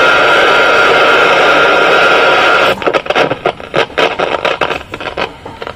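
Battery-powered Harvest transistor radio's speaker hissing with loud untuned static and a faint steady tone. The hiss cuts off abruptly about halfway through and gives way to irregular crackles and clicks.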